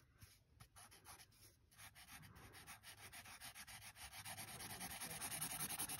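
Sharpie fine-point marker scribbling quickly back and forth on sketchbook paper, filling in a solid black area: faint, rapid strokes that grow louder toward the end.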